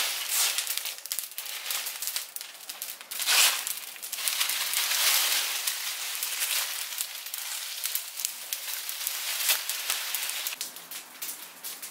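Garden bonfire of dry leaves, twigs and plant cuttings burning, with dense, irregular crackling and popping over a steady hiss, and a louder burst of crackling about three and a half seconds in.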